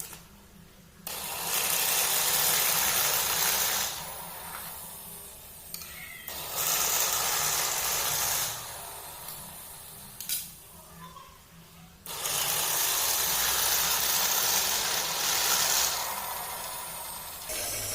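Electric cloth-cutting machine running, its blade slicing through layers of raincoat lining fabric in three long hissing passes with short pauses between, over a steady low motor hum.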